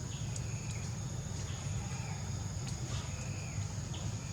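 A steady, high insect drone runs throughout, with short, high chirping calls repeating every second or so and a few faint clicks. Underneath is a constant low rumble.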